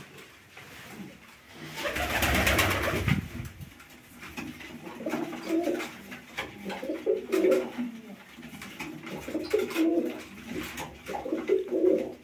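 Uzbek tumbler pigeons cooing over and over in a small loft, with a loud rustling whoosh about two seconds in.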